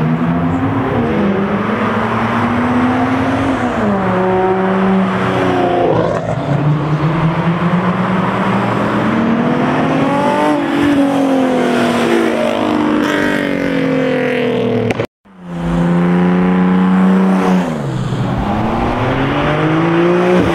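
Drift car's engine revved hard, its pitch climbing and falling again and again, over a steady noisy screech of tyres sliding. The sound cuts out for a split second about three quarters of the way through, then the revving picks up again.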